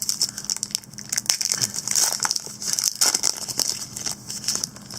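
Foil trading-card pack wrappers crinkling and crackling as a handful of packs is handled, an irregular run of sharp rustles that dies away at the end.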